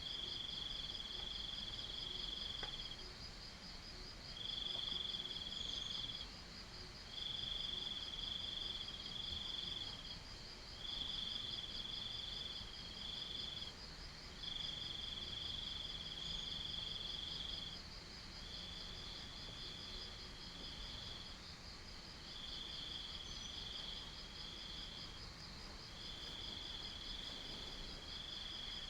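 Crickets and cicadas trilling: one high, rapidly pulsing trill runs steadily while a slightly lower trill comes in stretches of one to three seconds with short breaks.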